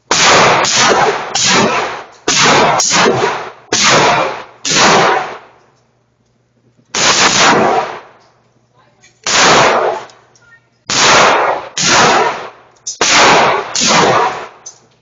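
Gunfire at a shooting range: a string of roughly fifteen shots fired in quick groups, each bang followed by a ringing tail, with a pause of about a second and a half near the middle.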